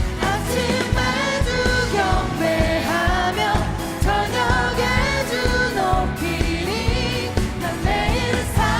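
Contemporary Christian praise music: singing over a full worship band with a steady beat.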